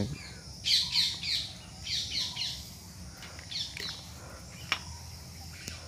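Birds chirping in several short bursts of quick falling notes, with one sharp click about three-quarters of the way through.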